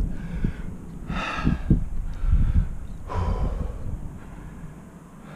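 A climber's hard breathing from the effort of a sustained crack climb: two heavy exhalations, about a second in and about three seconds in, with softer breaths between and a low rumble underneath.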